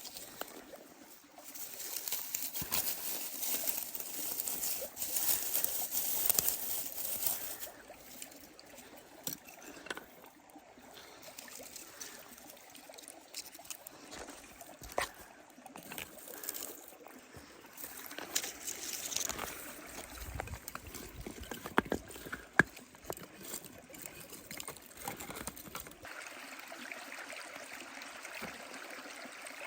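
Wood bonfire crackling with scattered sharp pops over the steady trickle of a flowing stream, a couple of louder pops about two-thirds of the way through.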